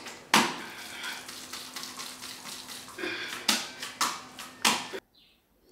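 Genfo porridge being shaped by hand in a plastic bowl: a run of soft wet slaps and knocks, with several sharper ones in the last couple of seconds, stopping abruptly about five seconds in.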